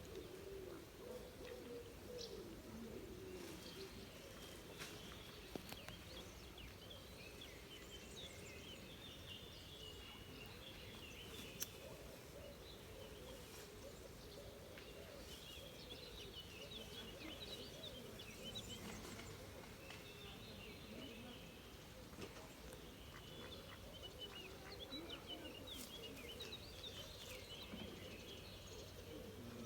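Small birds chirping and twittering on and off over a faint, steady outdoor background hum, with a few brief clicks.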